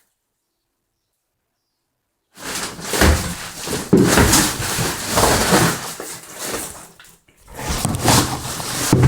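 Repaired plastic car bumper being flexed and knocked to test the strength of the repair: a run of loud thumps and plastic clatter starting a little over two seconds in, with a short break about seven seconds in.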